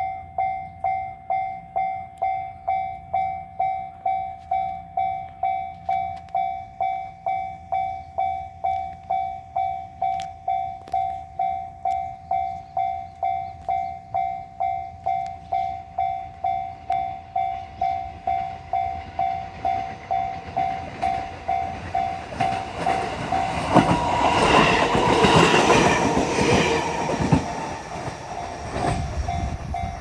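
Japanese level-crossing warning bell ringing in a steady repeating rhythm, a little under two strikes a second. About two-thirds of the way in, an electric train passes the crossing, growing loud and then easing off, with wheels clattering over the rails.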